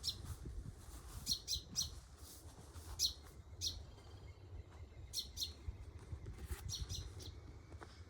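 Small birds chirping in short repeated calls, in little clusters every second or so, over a low outdoor rumble.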